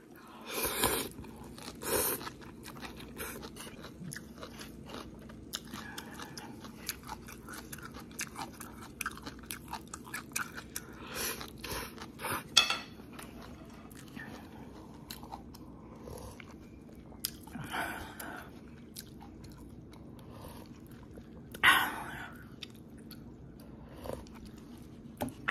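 Close-up eating sounds of instant cup noodles: a mouthful of noodles slurped in, then wet chewing with many small mouth clicks and smacks, and a few louder slurps. Near the end, broth is sipped from the cup.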